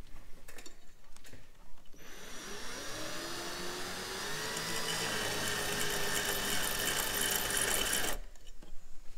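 Ryobi cordless drill driving a piston ring filer's cutting wheel, grinding the end of an LS1 piston ring to open its gap to just over 18 thou. After a few light clicks it spins up about two seconds in, runs steadily with a rough grinding note, and stops suddenly near the end.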